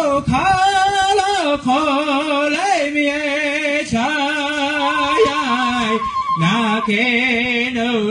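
Lakota Tokala (Kit Fox society) song sung by a man: long held notes with a wavering vibrato that slide between pitches. The voice comes back in with an upward slide at the start.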